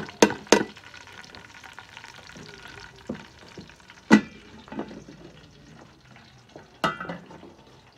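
Food frying and sizzling in a pan while it is stirred, a utensil knocking against the pan several times, loudest about four seconds in and again near the end.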